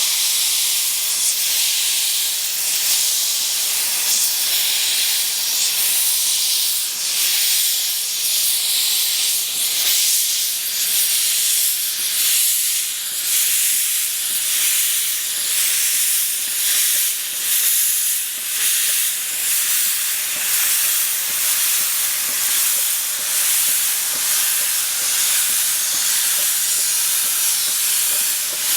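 Steam locomotive on the 15-inch-gauge railway hissing loudly and steadily with escaping steam. About a third of the way in, a run of regular exhaust puffs joins the hiss.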